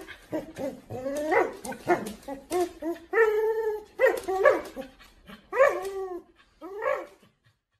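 Husky vocalising while tugging on a rope toy: a string of short pitched whining cries that rise and fall, with one longer, steadier cry about three seconds in.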